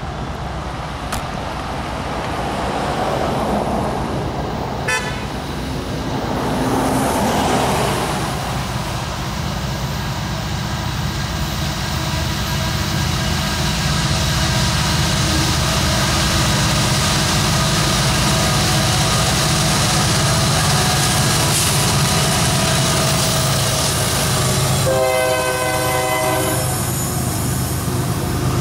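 A loaded coal train led by a BNSF "Heritage II" EMD SD70MAC diesel locomotive approaches, its engines running louder as it nears. Its multi-tone horn blows for about two seconds near the end as the loaded hopper cars roll past. A car passes on the adjoining road near the start.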